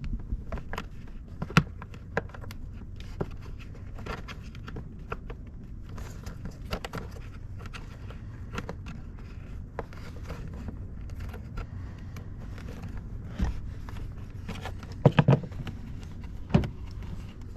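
Hand work on a car door's inner panel: scattered clicks, taps and light scrapes of plastic trim parts being handled and loosened, with a quick run of louder knocks about fifteen seconds in.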